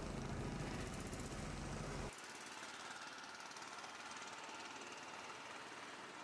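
Street ambience: a vehicle engine's low rumble for about the first two seconds, cutting off abruptly, then a steady faint hiss of distant traffic.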